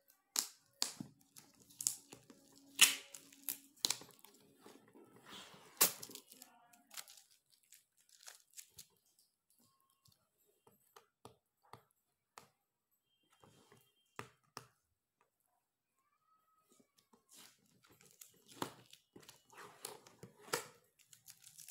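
Product packaging torn open by hand, with sharp rips and crinkling. It is busiest in the first several seconds, then comes as sparse clicks and rustles, and the crinkling picks up again near the end.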